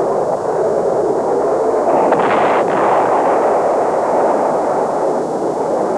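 Steady roar of a jet aircraft in flight, with a short cluster of sharp cracks about two seconds in.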